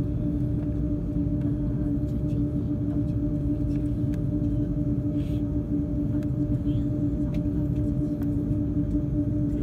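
Cabin noise inside an Airbus A330-300 taxiing: a steady low rumble with a constant hum over it.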